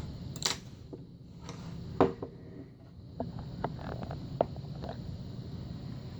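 Scattered sharp metal clicks and taps from a Schlage lock cylinder and tools being handled as it is taken apart, the loudest about two seconds in, over a steady low hum.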